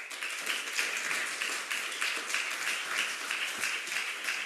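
Audience applause that breaks out all at once and holds steady: many hands clapping together.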